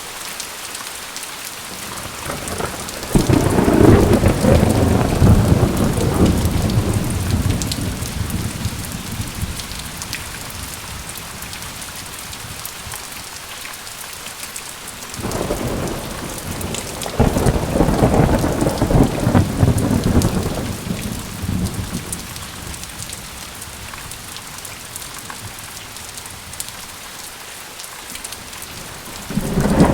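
Steady heavy rain with long rolls of thunder: a rumble builds about three seconds in and slowly fades, a second swells up about halfway through, and a third begins right at the end.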